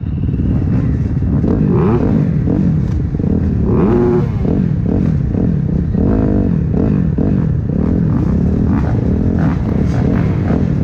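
Motocross bike engines revving at the starting gate, several at once, with repeated rising and falling blips of the throttle while waiting for the gate to drop.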